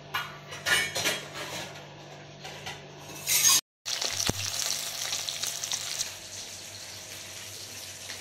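Short rustles and knocks as turmeric-coated fish pieces are handled in a steel bowl. After a brief cut about three and a half seconds in, fish frying in hot oil in an iron kadai, a steady sizzling hiss.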